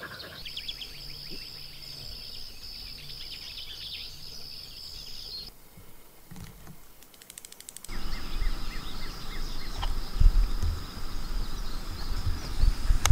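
Outdoor ambience: a steady high-pitched insect buzz with a few bird chirps. About five seconds in it drops away to near quiet with a few faint clicks, then returns about eight seconds in over a louder low rumble.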